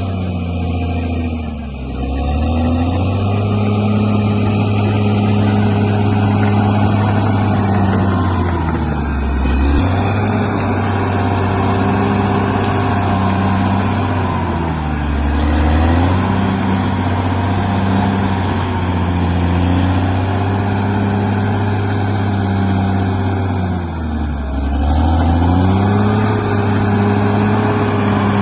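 Bulldozer's diesel engine running hard and steady, its pitch sagging briefly and recovering about four times as the load or throttle changes.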